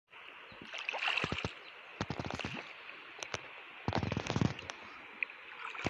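Paddle strokes splashing and gurgling in river water beside a bamboo raft, in bursts roughly every second or so, over a steady high hiss.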